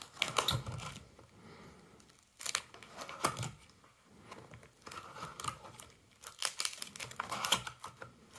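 Plastic pages of a baseball card binder crinkling as they are turned and handled, in several short bursts with quiet gaps between.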